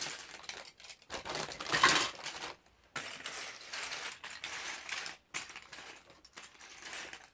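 Small plastic Lego pieces clicking and clattering against each other as they are rummaged through and dropped, loudest about two seconds in.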